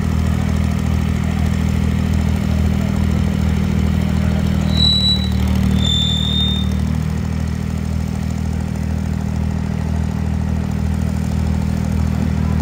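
Diesel engines of two Fiat tractors idling steadily, hitched back to back before a tug-of-war pull. Two short high whistles sound about five and six seconds in.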